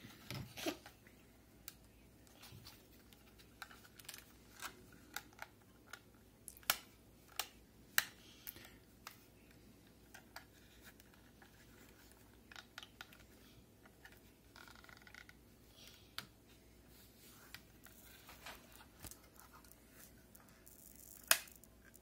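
Faint, scattered clicks and plastic scraping as a 2.5-inch SSD is handled and fitted into a blue plastic tool-less drive caddy. A few sharper clicks come about a third of the way in, and one just before the end.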